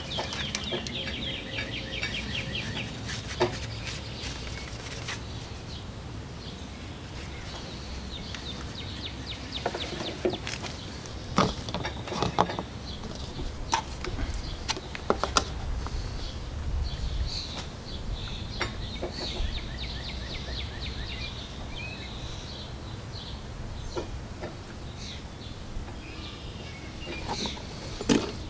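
Outdoor birdsong: repeated quick chirping trills, plainest near the start and again in the middle. Scattered sharp clicks and knocks come through at the same time.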